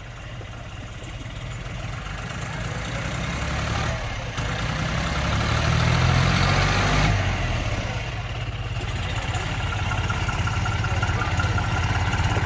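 John Deere tractor's diesel engine pulling under load while the tractor rides on its rear wheels in a wheelie. It grows louder as it comes closer, eases off briefly about seven seconds in, then builds again.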